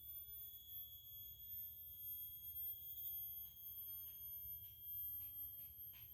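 An insect's steady, unbroken high-pitched trill, faint. About halfway through, a few soft ticks join it, about two a second.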